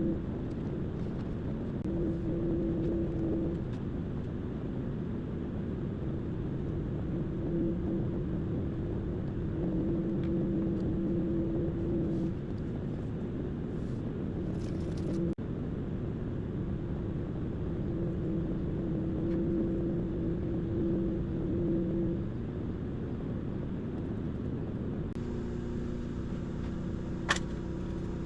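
Vacuum cleaner running, its tone swelling and fading every few seconds as the nozzle is worked. Near the end the motor note changes to a steadier hum, and there is a sharp click.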